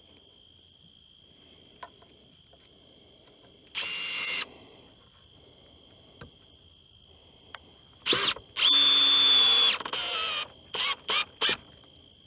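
Cordless drill driving screws through a pressure-treated 2x8 stair tread into the stringer: a short run about four seconds in, then a longer run a little after eight seconds, ending in three quick bursts.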